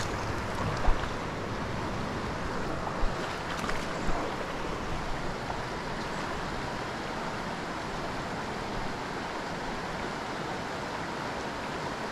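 Small creek's water rushing steadily, with a few light clicks about a second in and again around three to four seconds in.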